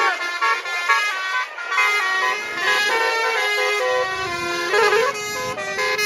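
Tour bus telolet musical air horn playing a rapid tune of stepped notes, several horn tones sounding together and changing pitch every fraction of a second. A bus engine rumbles underneath in the second half as the bus draws close.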